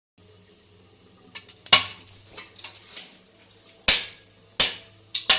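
A series of sharp knocks and clicks, four loud ones among several smaller ones at uneven intervals, over a faint steady low hum.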